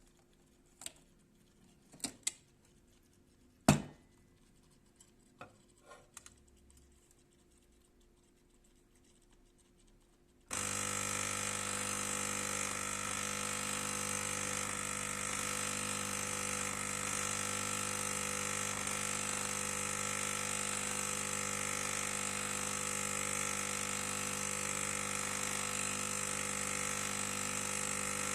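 A few clicks and knocks, then about ten seconds in a Cremesso Uno capsule coffee machine's pump starts and hums steadily for about eighteen seconds before cutting off sharply. The machine hums but does not brew: no water comes through and the capsule stays dry.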